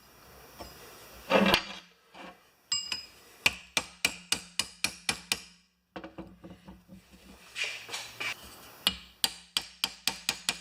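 Hammer tapping on a lawn-tractor mower spindle to drive its bearing hub off the shaft. The taps come in two quick runs of about four a second.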